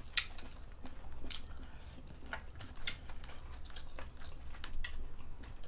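Close-up eating sounds: people chewing seafood bulgogi and rice with soft mouth smacks and irregular sharp clicks, over a low steady hum.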